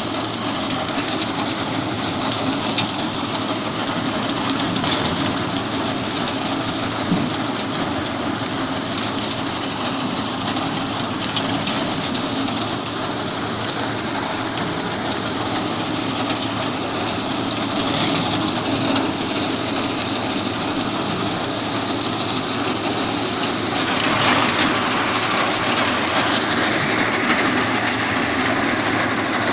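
Yapel DG 140 reaper-binder, driven from the tractor's power take-off, cutting dry reeds: a steady mix of the tractor engine, the machine's cutting and binding mechanism and the reed stalks rustling through it. It grows louder about 24 seconds in.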